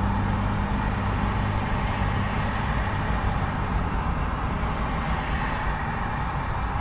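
Steady traffic noise from a busy urban road. A low engine drone is strongest at the start and fades after a second or two.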